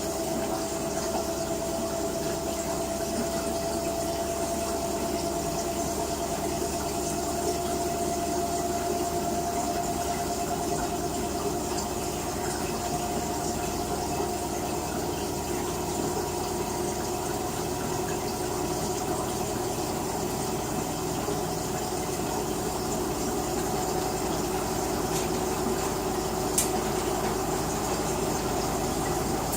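LG WT-R852 direct-drive washing machine running, its motor whine slowly rising in pitch. There is a single faint click near the end.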